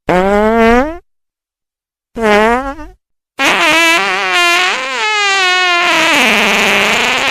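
Fart sound effects, three in a row. A short one rises in pitch, a second short one comes about two seconds in, and a long wavering one of about four seconds follows.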